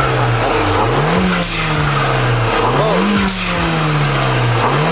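Turbocharged car engine blipped three times, its pitch jumping up and then sinking slowly after each blip. As the throttle closes after the first two blips, the blow-off (pop-off) valve vents the trapped boost with a short 'pss' hiss, releasing the pressure that would otherwise slam back against the turbo's compressor wheel.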